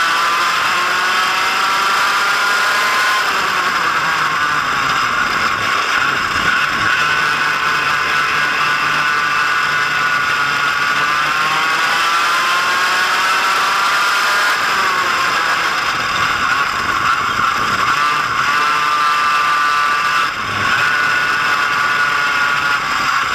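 Kart engine of a vintage Comet Mach 1 go-kart running hard at speed, heard from on board. Its pitch dips and climbs again several times as the throttle is lifted and reapplied.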